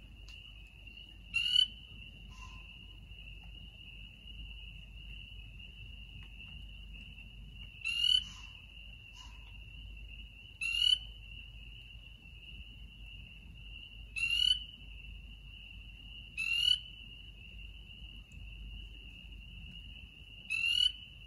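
Animal calls in woodland: a steady high-pitched trill continues throughout, while a louder, short call is repeated six times, a few seconds apart.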